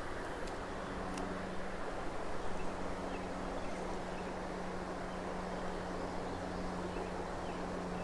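Steady rush of creek water running over rapids, under a steady low hum, with a couple of faint clicks about a second in as a light spinning rod is cast.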